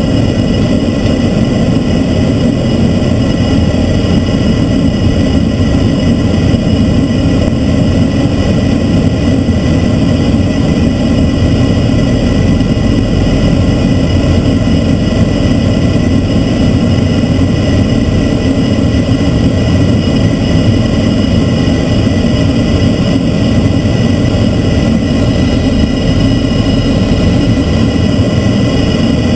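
A Transall C-160's two Rolls-Royce Tyne turboprop engines and propellers running steadily on the approach, heard from inside the cockpit: a loud, deep, unchanging drone with several thin steady whines above it.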